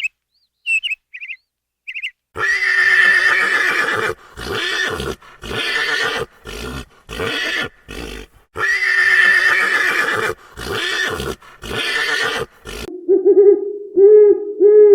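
Horse neighing: a loud series of whinnies, one long call followed by several shorter ones, the pattern heard twice. A few short bird chirps come before it, and owl hoots begin near the end.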